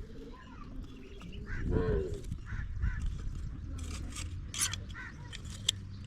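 Farm fowl calling: one loud honk-like call about two seconds in, then a few short, high calls, over a steady low rumble.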